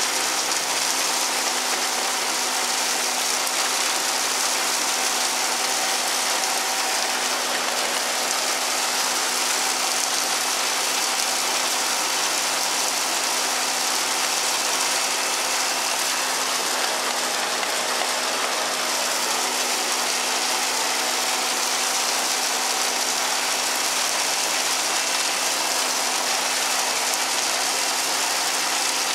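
Forage wagon unloading chopped corn silage: the wagon's conveyor and beaters run steadily with tractor-driven machinery, under the hiss of silage pouring out.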